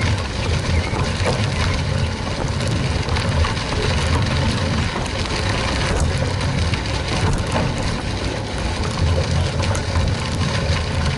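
Wind buffeting a handlebar-mounted action camera's microphone as a Trek 920 gravel bike rolls along a dirt road, with the tyres crunching on grit and small scattered clicks.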